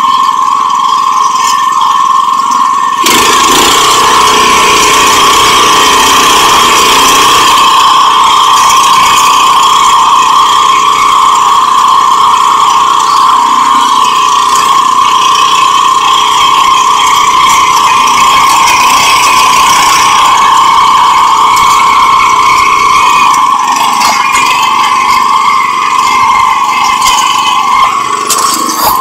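Single-cylinder engine of a 7 hp rotary tiller (power weeder) running steadily, with mechanical rattle. About three seconds in it gets louder and rougher, then eases again near the end.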